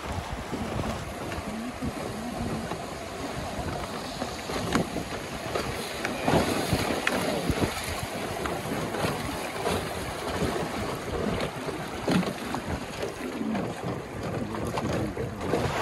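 River water rushing and lapping around a raft, with wind gusting on the microphone and scattered small splashes and knocks.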